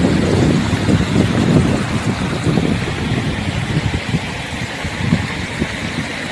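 Muddy river water rushing and lapping around a camera held just above the surface, with wind buffeting the microphone in uneven low rumbles.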